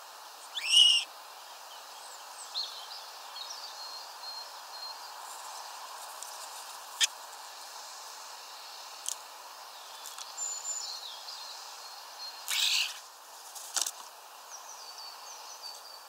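Common starling singing: a loose run of whistles, short chirps and sharp clicks, opening with a loud rising whistle about a second in. About two-thirds of the way through comes a brief, loud, harsh burst.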